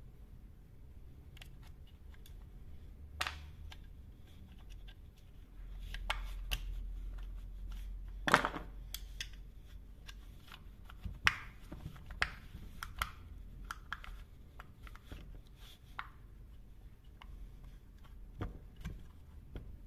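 Scattered clicks and scrapes of a screwdriver prying at a chainsaw's plastic oil-pump drive gear to work it loose, with the sharpest clicks about eight and eleven seconds in.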